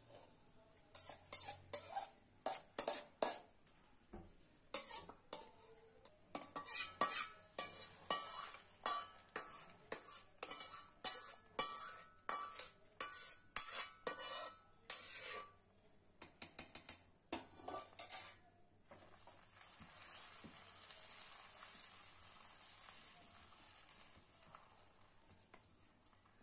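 A steel spoon scrapes and clinks against a stainless steel kadai in many quick strokes as cashews fry in ghee, ending as the pan is scraped out into the pot. About 19 seconds in, a sizzling hiss swells and slowly fades as the hot ghee meets the pongal.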